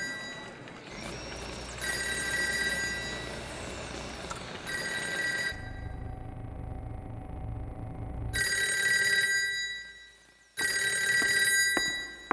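Telephone bell ringing in repeated bursts of about a second each, roughly every three seconds, with a low hum in one of the gaps.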